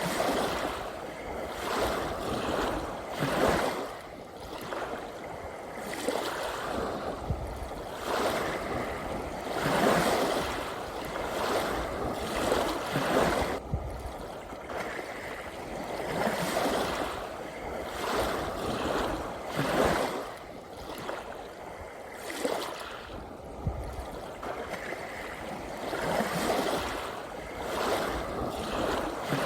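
Ocean waves splashing and washing in, the sound swelling and falling back every two to four seconds.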